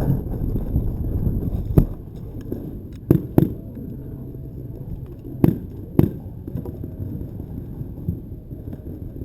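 Paintball markers firing: five sharp single pops scattered over several seconds, two of them in quick pairs. Low rumbling movement noise on the microphone in the first couple of seconds.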